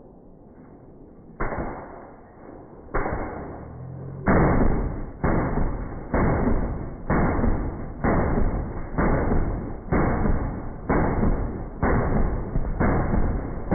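M2 .50 BMG heavy machine gun firing, played back slowed down from high-speed footage: each shot is a deep boom with a long fading tail. Two single shots, then from about four seconds in a steady string at about one boom a second.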